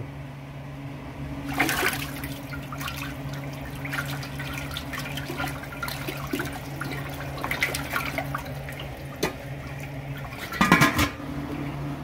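Water splashing and sloshing in a large stainless steel stockpot, with a sharper splash about two seconds in and the loudest one near the end.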